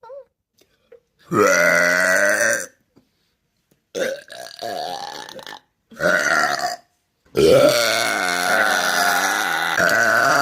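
Four loud, long, drawn-out human belches one after another. The first lasts about a second and a half, the third is short, and the last runs about three seconds.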